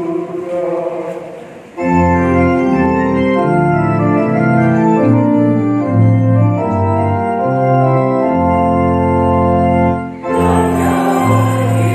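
Yamaha Electone Stagea electronic organ playing a hymn interlude of held chords over a moving bass line. The choir's sung phrase dies away in the first couple of seconds, and near the end the choir comes back in over the organ.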